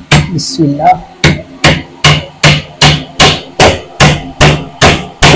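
Hammer driving nails into a wooden table frame: a steady run of sharp blows, about two and a half a second.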